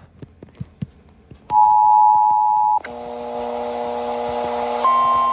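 Emergency Alert System alert tones. After a few faint clicks, a loud steady two-note tone starts about one and a half seconds in and gives way a little over a second later to a lower, fuller chord of steady tones. A higher steady tone joins near the end.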